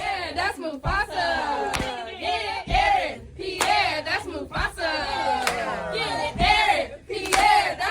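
A crowd of voices chanting in unison, loud, with a sharp beat about once a second.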